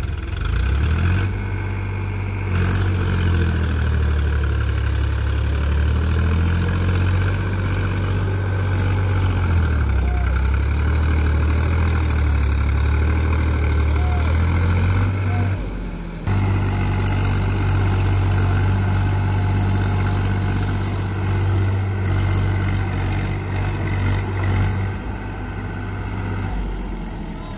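Powertrac Euro 50 tractor's diesel engine running with a steady low rumble, which breaks off briefly about a second in and again around sixteen seconds in.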